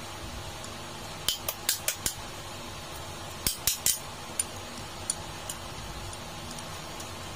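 Sharp metal clicks and clinks of a screwdriver against the screws and steel casing of a small freezer condenser fan motor being reassembled, in two quick clusters of four or five with a few lighter ticks after, over a steady background hum.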